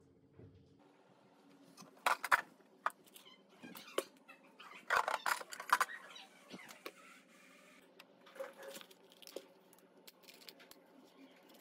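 Clattering and clicking of small objects being handled in a clear-plastic parts-drawer cabinet. It comes in two louder bursts, about two seconds in and around five seconds in, with lighter taps and rustles after.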